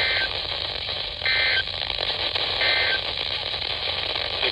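Three short bursts of weather-radio SAME data tones, about a second apart, over a steady radio hiss. Short bursts like these are the end-of-message code that closes an emergency alert broadcast.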